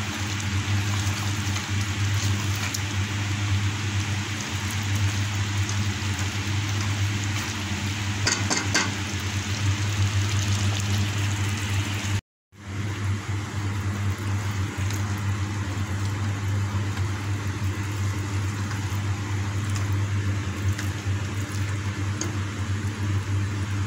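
Beef and bean masala simmering and sizzling in an open aluminium pressure-cooker pot: a steady hiss over a low steady hum. There are a few quick clicks about eight seconds in, and the sound drops out for a moment about halfway through.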